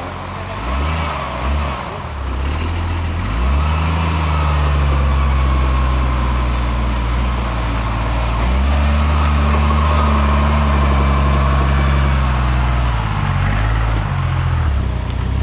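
Off-road vehicle's engine revving: a few quick blips of the throttle, then two long spells held at higher revs, dropping back near the end.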